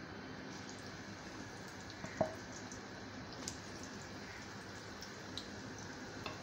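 Hot oil faintly sizzling and crackling as breaded chicken-and-potato doughnuts deep-fry in a wok, with one soft knock about two seconds in.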